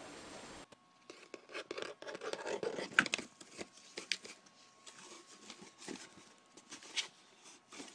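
Close scraping, rustling and clicking of things being scrabbled at and moved about, with a sharp tap about three seconds in and another about seven seconds in.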